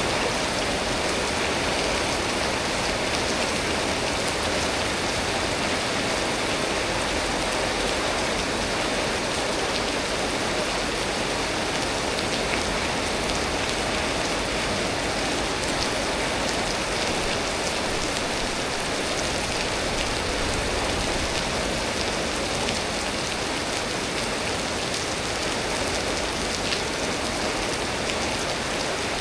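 Steady storm rain: an even, unbroken hiss of rainfall, with scattered sharper ticks of individual drops.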